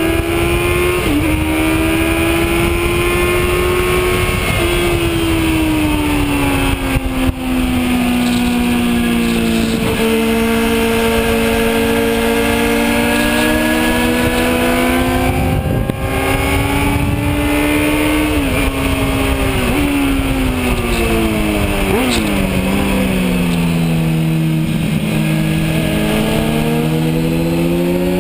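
Kawasaki Z1000's inline-four engine heard onboard at racing speed. Its note climbs under acceleration, drops under braking into corners, and jumps in quick steps at the gear changes. Heavy wind rush runs underneath.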